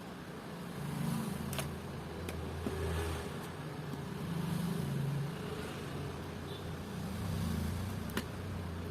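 Low engine hum of passing motor vehicles, swelling and fading about three times, with a few light clicks.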